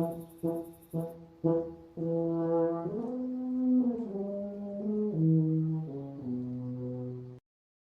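Low brass music: four short staccato notes, then a slow melody of held low notes stepping up and down, which cuts off abruptly near the end.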